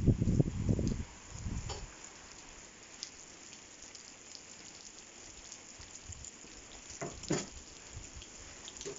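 Steady rain falling in a light, even hiss, with a few sharp taps about two, three and seven seconds in. A loud low rumble fills the first second before the rain is heard alone.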